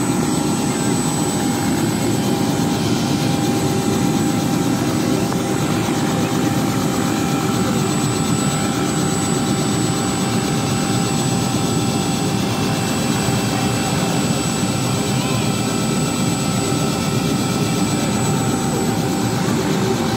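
Light helicopter running steadily on the ground at idle.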